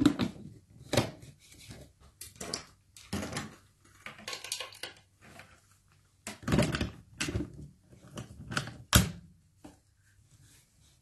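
Plastic clicks and knocks as the white lid of a Braun hand blender's chopper bowl is set on and the motor unit is fitted onto it. Irregular separate knocks with short gaps, the loudest about six and a half and nine seconds in.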